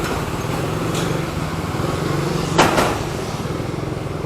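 A motor vehicle engine running steadily, with one sharp clank a little past halfway.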